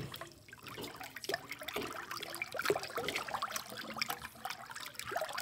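Kitchen faucet running a stream of water into a stainless steel sink basin that already holds water, with steady uneven splashing.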